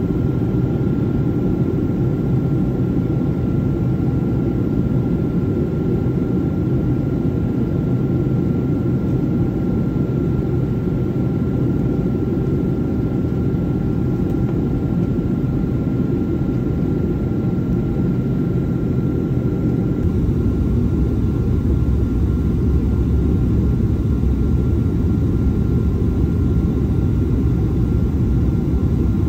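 Jet airliner cabin noise at a window seat beside the engine during the final descent: a steady dense rumble with a thin constant whine. About two-thirds of the way through, the sound abruptly turns deeper and heavier as the plane nears the ground.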